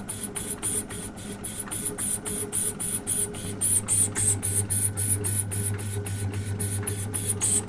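Metal lathe taking a cut on a turned connector: a steady motor hum under a rhythmic hissing scrape from the cutting tool, about five strokes a second.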